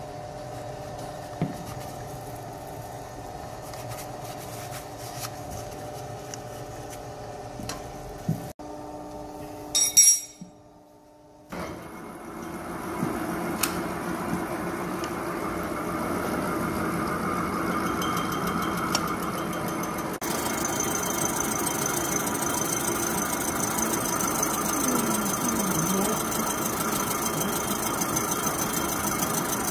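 Milling machine running, its face-mill cutter skimming the deck face of a Hyundai Porter II A2 engine's cylinder block flat. Before the cut starts there is a quieter steady machine hum with a few small clicks, and a single loud sharp clack about ten seconds in.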